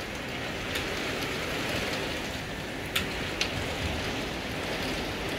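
Heavy monsoon rain pouring steadily, an even hiss with a few sharp taps, the loudest about three seconds in.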